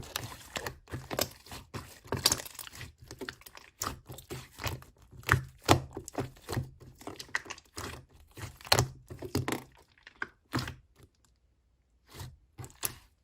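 Lime-green slime being squeezed and pressed by hand, giving a quick irregular run of sharp clicks and crackling pops with some soft thuds. It stops for about a second and a half near the end, then a few more pops.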